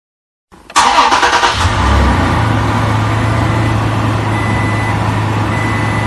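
Recorded truck engine sound effect: an engine starts about a second in and then idles steadily with a low hum.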